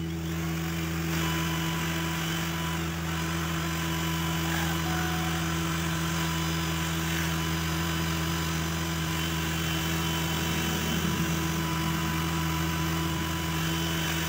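Cordless drill running steadily with a twist bit, boring a hole into the end grain of a wooden strip; a continuous motor whine that comes in about a second in.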